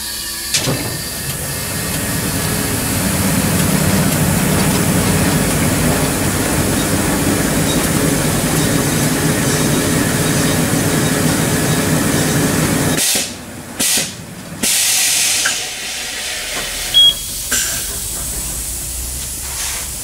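Hunter Road Force wheel balancer spinning a wheel and tire with its load roller pressed against the tread to measure road force: a steady whirring rumble that builds over the first couple of seconds, then cuts off suddenly about 13 seconds in as the spin ends. The tire being measured is old and flat-spotted.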